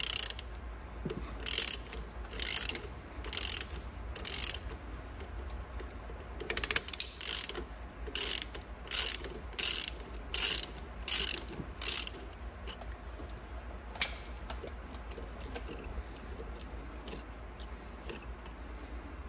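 Socket ratchet clicking in short bursts on its back-strokes while a stud remover unscrews a stud from an engine block. The bursts come about once a second at first, then faster, and stop about twelve seconds in, with one last click a couple of seconds later.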